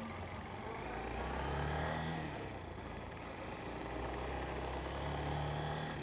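Motorcycle engine running as it is ridden through town, with a steady low note that swells slightly twice, over road and wind noise.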